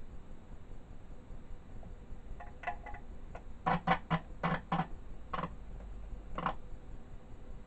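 Ekco MPT333 transistor radio's loudspeaker giving about ten short bursts of sound that cut in and out over a few seconds while the chassis is handled. This is the sign of an intermittent fault in the set.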